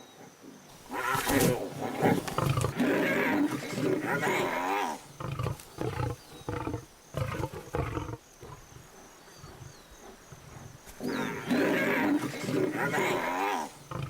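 Lions growling and snarling as they attack a hyena. The growling comes in two loud bouts, one in the first few seconds and one near the end, with a quieter stretch between.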